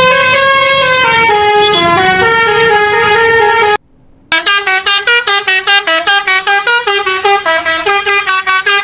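Basuri telolet bus horn playing a melody of held notes that step up and down, cutting off about four seconds in. After a short pause it sounds again in a quick run of short staccato notes, several a second.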